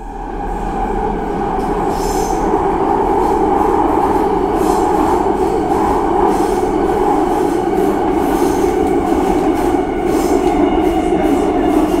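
Subway train running on its tracks through a tunnel: a steady, heavy rumble that swells up over the first couple of seconds. Brief high wheel squeals come every few seconds.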